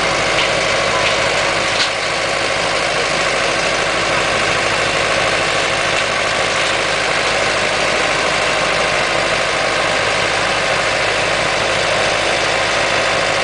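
Engine of harvesting machinery running steadily with a dense, even drone, and a few light clicks in the first two seconds.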